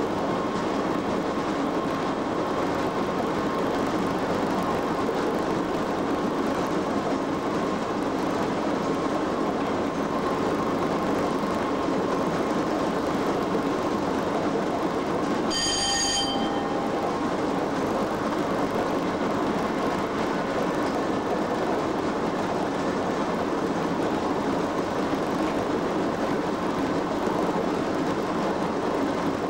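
Steady running noise of a Class 87 electric locomotive at speed, heard from inside the cab: wheels on rail and machinery. About halfway through, a brief bell-like tone rings once for under a second.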